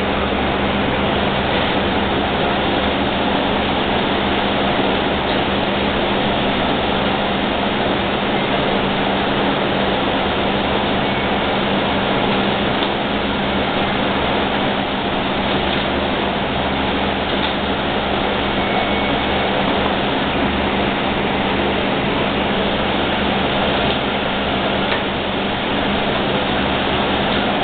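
Steady rushing noise with a low hum underneath, unchanging throughout, like a fan or air conditioner running.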